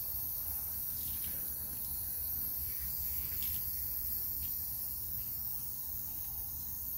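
Garden hose spray nozzle running steadily, water hissing out onto a dog's wet coat as the medicated shampoo is rinsed out.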